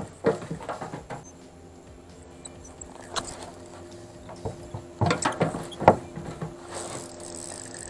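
Spinning fishing rod and reel being worked, with a few short squeaks about three, five and six seconds in, over a faint steady hum.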